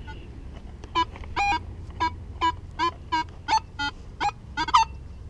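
Nokta Legend metal detector giving a rapid run of short electronic target beeps, about three a second, most at one pitch and a few a little lower, as the coil sweeps back and forth over buried metal.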